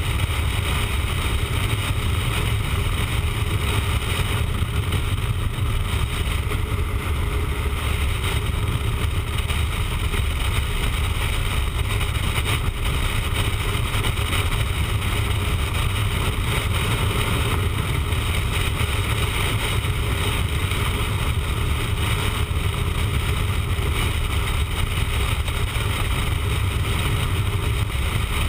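Motorcycle cruising at steady highway speed: engine drone mixed with rushing wind, heard as an even, unbroken low rumble.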